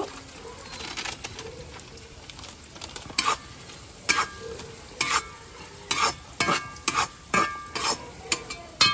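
Metal spoon stirring and scraping a metal kadai of shallots, green chilli, ginger and curry leaves frying in coconut oil with coriander and turmeric powder, over a steady low sizzle. The spoon clinks against the pan sparsely at first, then about once or twice a second from about three seconds in.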